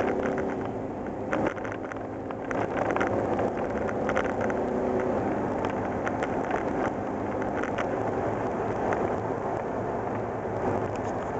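Inside the cab of a 1987 Ford Ranger pickup with the 2.9L Cologne V6, driving at a steady road speed: constant engine drone and tyre and road noise, with frequent light clicks and rattles.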